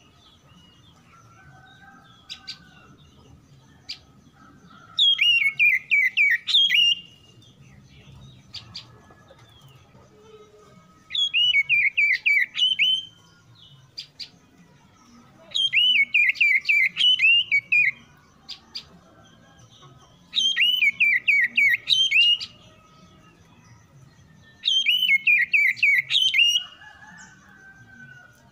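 Oriental magpie-robin song: five bouts of rapid, repeated falling whistled notes, each about two seconds long, coming every four to five seconds.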